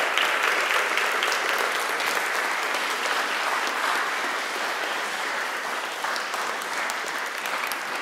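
Audience applauding: steady, dense clapping that eases slightly toward the end.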